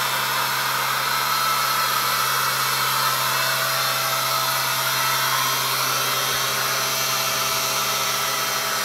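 Robot-held sanding head of the Cosmo sanding robot running on a door's centre panel: a constant whirring hiss with a steady hum underneath.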